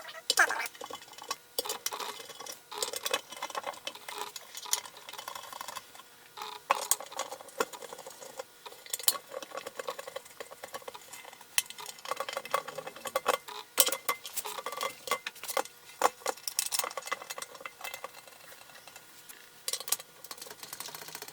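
Irregular metallic clinks, taps and rattles of bolts, hand tools and the steel pan being handled and fitted onto a Ford C6 automatic transmission case.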